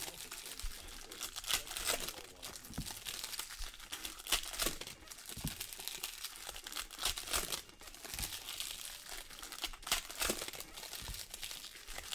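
Foil wrappers of Panini Select Soccer trading-card packs crinkling and tearing as they are ripped open by hand, in irregular spells of rustling.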